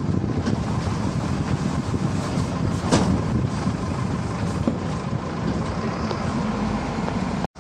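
Steady engine and road noise of a truck driving, heard from on board the moving vehicle, with a single sharp knock about three seconds in.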